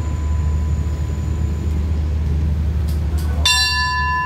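Brass station bell struck once by hand about three and a half seconds in, ringing on with several clear overlapping tones. A train's engine runs with a steady low hum underneath.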